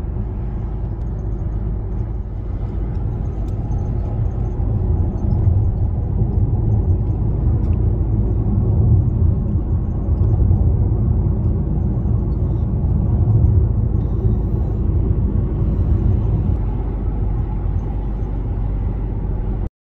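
Highway driving noise: a steady low rumble of tyres, engine and wind while driving alongside a car-carrier truck, a little louder from about five seconds in. It cuts off suddenly near the end.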